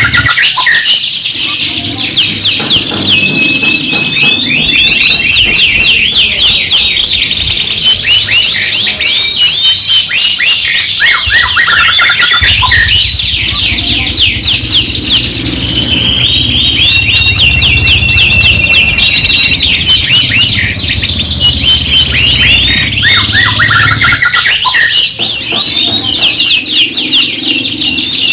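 Several canaries singing at once: a loud, continuous stream of fast trills and rolls with long held whistled notes, from contest-type canaries.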